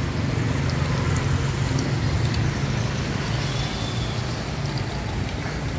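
Steady low rumble of street traffic, with motorbike engines running nearby.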